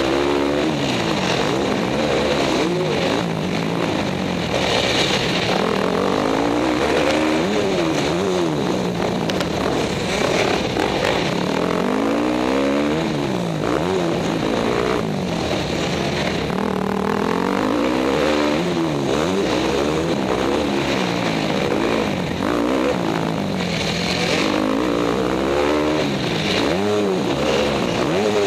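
Dirt bike engine revving up and down over and over, its pitch climbing and dropping every second or two as the throttle is opened and closed, heard from a helmet-mounted camera.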